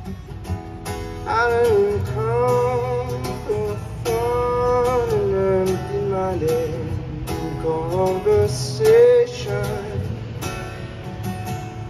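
Acoustic guitar strummed in steady chords with a voice singing a melody over it, coming in about a second in with long held and sliding notes, played live through a PA.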